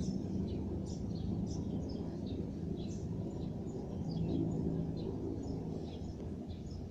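Steady low drone of distant helicopters flying over, with small birds chirping repeatedly.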